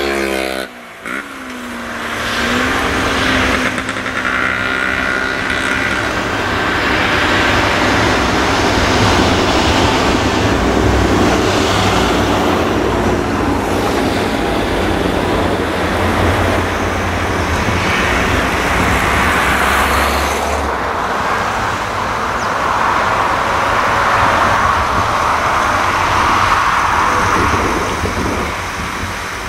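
Farm tractor diesel engines working under load as a tipping trailer unloads chopped maize onto a silage pile, with a steady low drone; one engine revs up about two seconds in.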